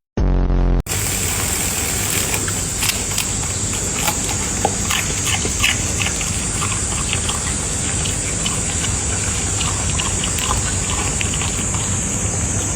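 A dog making short, scattered noises over a steady hiss.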